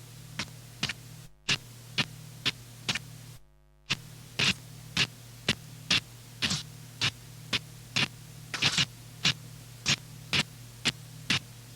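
Noise music: a steady electrical hum overlaid with short, sharp bursts of static at about two a second. The hum cuts out for an instant twice in the first few seconds.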